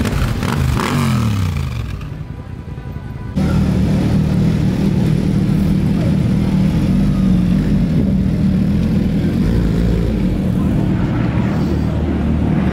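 Motorcycle engines riding past in slow street traffic. First one engine's pitch falls as it goes by; then, from about a third of the way in, a steady engine drone holds as sport bikes roll past.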